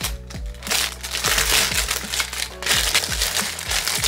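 Plastic packaging crinkling and rustling as a makeup brush set is unwrapped, over background music with a steady beat.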